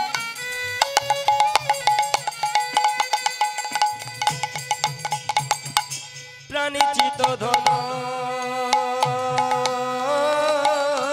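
Kirtan music: hand-drum strokes and small cymbal clashes under a steady, held melody line. It drops out briefly a little past halfway, then starts again.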